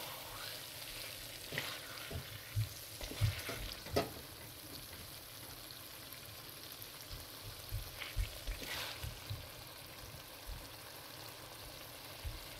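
Lamb curry masala sizzling in oil in a clay pot, stirred with a spatula: a steady frying hiss with scattered scrapes and knocks of the spatula against the pot, in two spells a few seconds in and again past the middle.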